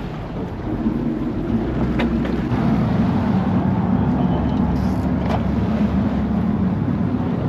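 Boat engine running steadily, louder from about a second in.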